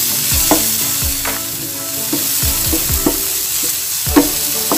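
Shiitake mushrooms, garlic and onion sizzling in margarine in a non-stick frying pan, stirred with a wooden spatula that scrapes and taps against the pan repeatedly.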